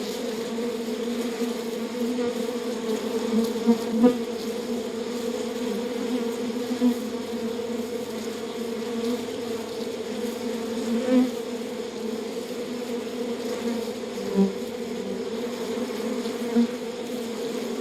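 Beehive humming: the steady drone of many bees, with single bees buzzing briefly louder now and then.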